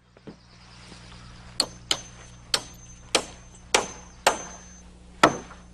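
Hammer driving nails into framing lumber, about eight sharp blows at uneven spacing, some leaving a faint metallic ring. The last blow is the loudest.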